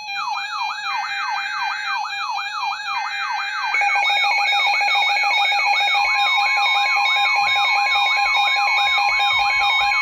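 Weather radio alert alarms sounding together: a siren-like tone sweeping down in pitch about three times a second over steady electronic beeps. In the first few seconds, short bursts of SAME data tones mark the header of a new warning, and a further steady alert tone joins about six seconds in.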